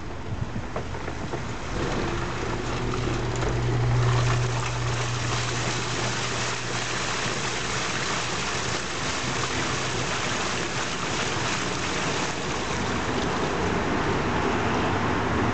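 LG 13 kg direct-drive inverter washing machine running, with water pouring and splashing in the drum over a steady low hum.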